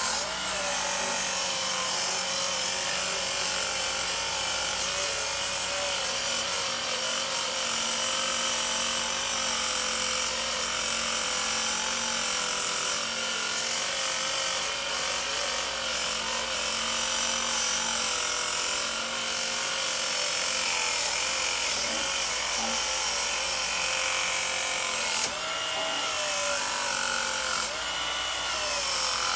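Work Sharp electric belt sharpener with a 220-grit belt running against the steel edge of a lawn mower blade, grinding the edge sharp. It gives a steady motor whine whose pitch dips briefly a few times near the end.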